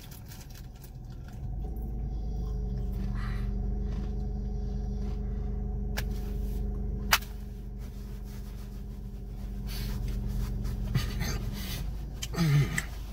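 A man's long, steady closed-mouth hum of enjoyment ("mmm") while chewing a biscuit, lasting about ten seconds and sagging slightly at the end. A sharp click comes about seven seconds in.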